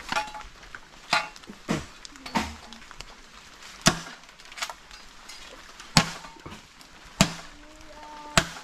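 Machete chopping into a green bamboo stalk: about nine sharp blows at uneven intervals, some followed by a brief hollow ring.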